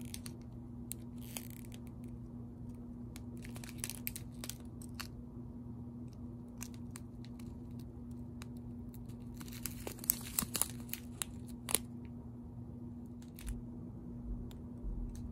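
Small clear plastic bags of diamond-painting drills crinkling and rustling as they are handled, in scattered short bursts with small clicks, over a steady low hum.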